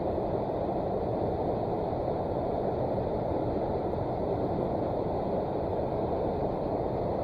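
River water rushing steadily, an even noise with no changes.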